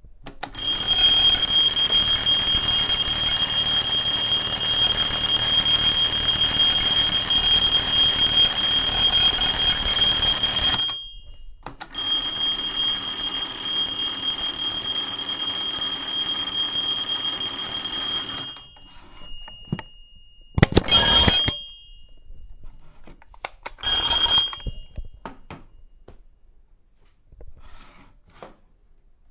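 Alarm clock ringing: a long continuous ring of about ten seconds, a brief stop, a second ring of about six seconds, then two short rings about three seconds apart.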